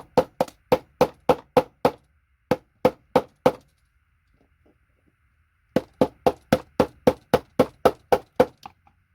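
A hammer tapping steadily on a paint scraper, about three to four blows a second, to knock gold-plated connectors off a circuit board. There are three runs of blows, with a pause of about two seconds before the last run.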